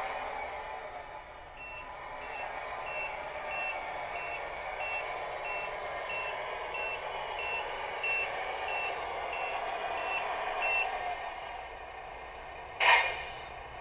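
Reversing alarm of a Tamiya Volvo tow truck RC model beeping at one steady high pitch, about three beeps every two seconds, over a steady running noise. The beeps stop about eleven seconds in, and a short loud burst of noise comes near the end.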